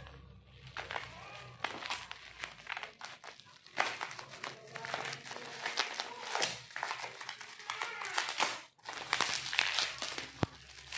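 Plastic bubble-wrap packaging crinkling and rustling as it is unwrapped by hand, in irregular crackles with a short pause near the end.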